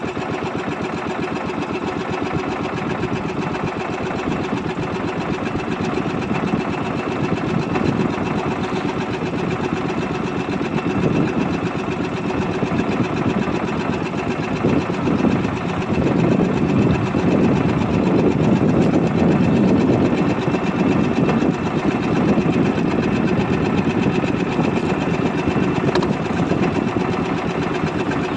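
Small fishing boat's engine running steadily with a fast, even putter, growing somewhat louder for a few seconds in the middle.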